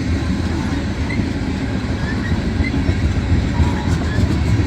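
Freight cars of a long mixed freight train rolling past at about 20–25 mph: a steady rumble of steel wheels on the rails.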